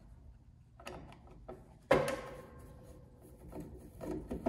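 Insulated screwdriver working at the screws of a plastic BG weatherproof socket on a stainless-steel worktop: small clicks and scrapes, with one sharp knock about two seconds in that rings briefly.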